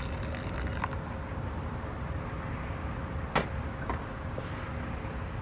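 Hot water poured in a thin stream from a kettle into a drip coffee bag over a metal mug, the pour stopping partway. A sharp clink about three and a half seconds in, over a steady low rumble.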